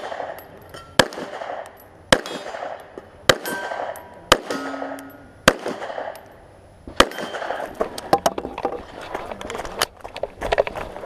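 Pistol shots fired at a steady pace, about one a second, each with a short echoing tail; from about eight seconds in the shots come faster and overlap.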